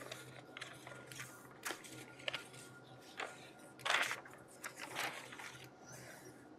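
Faint rustling and light taps of paper being handled on a desk, a few scattered clicks with the loudest about four seconds in, over a low steady room hum.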